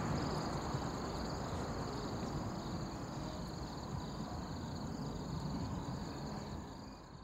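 Outdoor ambience: a steady high insect chorus over low rumbling noise, fading out near the end.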